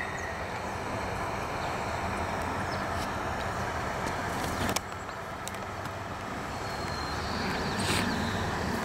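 Steady outdoor background noise with no clear single source, broken by one sharp click about halfway through.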